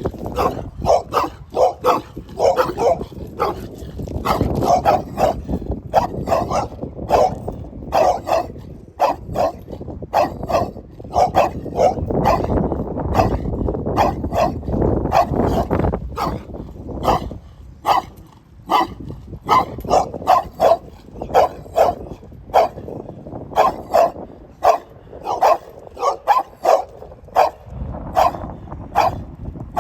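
A dog barking over and over, about two barks a second, with a low rumbling noise under the barks for several seconds in the middle.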